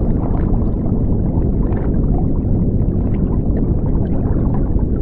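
Steady low rumbling noise with small crackles scattered through it.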